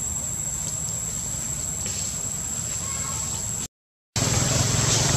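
Forest ambience: insects holding one steady high-pitched drone over a constant low rumble, with a few faint bird chirps. The sound cuts out for about half a second nearly four seconds in, then comes back louder.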